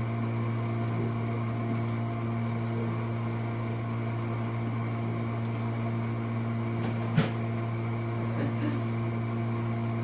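Jenn-Air dishwasher running its rinse-only cycle: a steady pump-motor hum, with one sharp click about seven seconds in.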